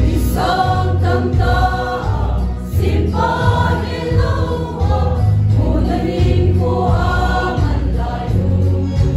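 A mixed choir of young women and men singing a hymn together in phrases, over a steady electronic organ accompaniment.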